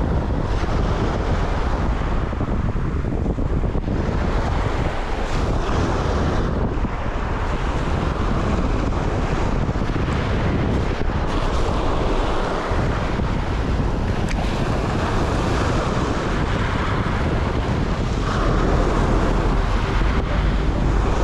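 Strong wind buffeting the microphone, with surf washing on the shore underneath.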